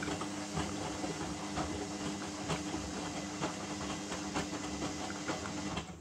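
Hotpoint front-loading washing machine tumbling laundry in water during a deep rinse: a steady motor hum under sloshing, hissing water with irregular splashes. The sound cuts off suddenly near the end.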